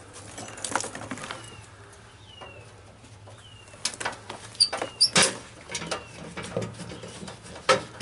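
Scattered metal clicks and knocks from handling the steel meter base, with a sharper snap near the end as a magnet-mounted multimeter is stuck onto the box. Several short, falling bird chirps sound in the background.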